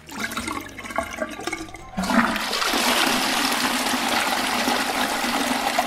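Sound effect of rushing, gushing water, starting suddenly about two seconds in and then running steadily.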